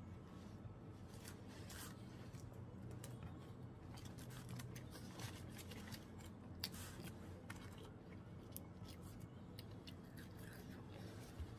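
Faint chewing with many small, irregular mouth clicks as a man eats a fish sandwich, then bites into a chicken nugget near the end, over a steady low hum.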